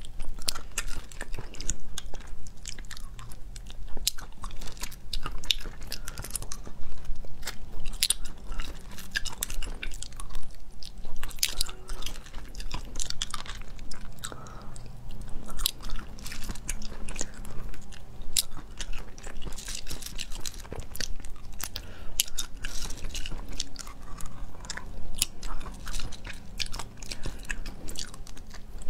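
Close-miked eating of small spicy sea snails: the meat is sucked from the shells and chewed, with many sharp, irregular mouth clicks and smacks.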